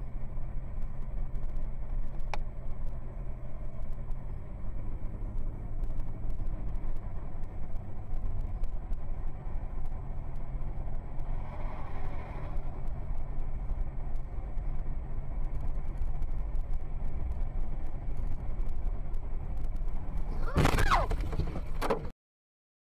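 Car engine hum and road noise inside a moving car, steady. About twenty seconds in comes a loud, sudden burst lasting about a second and a half, the collision with a car turning across its path, and then the sound cuts off.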